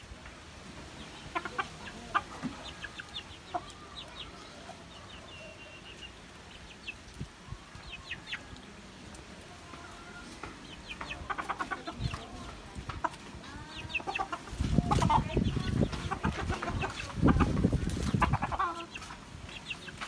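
Hen and rooster clucking in short scattered calls as they peck at seed. In the second half, loud stretches of low rumbling of unclear source come in twice.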